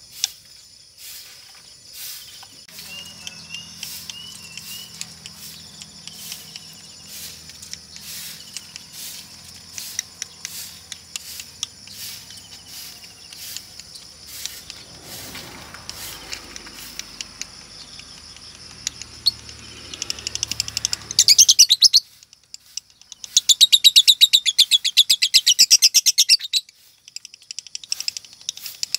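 Female Fischer's lovebird giving two loud bursts of fast, rattling chatter in the last third, the second about three seconds long, after a few faint chirps. This is the 'ngekek' chatter that hobbyists watch for as a sign of a female lovebird going 'konslet'.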